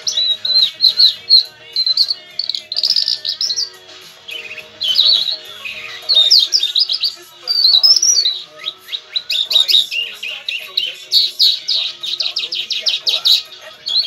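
Caged lark singing a rapid, continuous song of quick chirps and trills, with a couple of short lulls.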